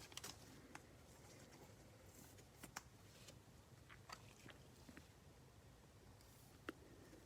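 Near silence with a few faint, scattered clicks and light rustles of sports trading cards being handled.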